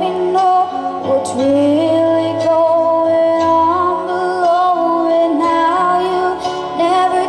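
A woman singing live over a sustained instrumental backing, her voice sliding between held notes.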